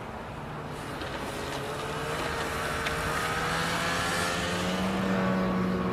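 Snowmobile engine running steadily as it approaches, its drone growing louder through the second half, mixed with the engine of a pickup truck driving past.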